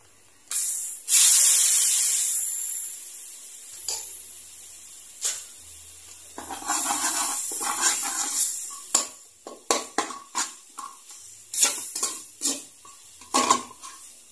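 Liquid poured from a ladle into a hot metal wok sizzles loudly about half a second in, the hiss fading over a few seconds. Then a metal spatula stirs and scrapes the mixture around the wok, with a run of sharp metal clicks near the end.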